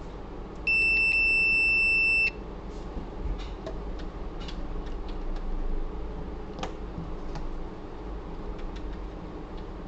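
AN8000 multimeter in continuity mode giving one steady high beep about a second and a half long, starting under a second in: the probes on the motherboard have found a near-zero-resistance path, as when checking a capacitor for a short. Faint clicks of the probe tips follow.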